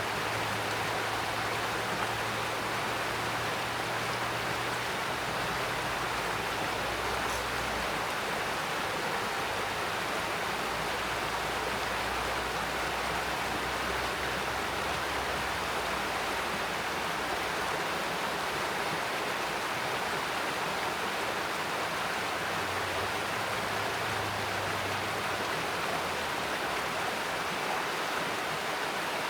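Mountain stream running with a steady, even rush of water.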